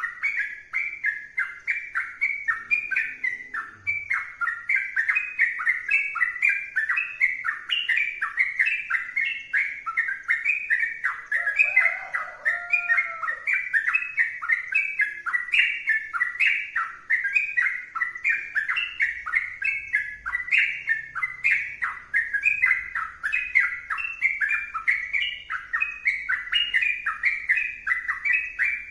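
Yellow-vented bulbul (trucukan) singing without a break: a rapid, continuous string of short falling whistled notes, about three a second. A brief lower warbling note comes about twelve seconds in.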